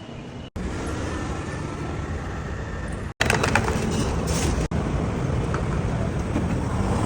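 Steady low rumbling noise, like road traffic, in several short clips cut together. A louder stretch with clattering and hissing begins a little over three seconds in.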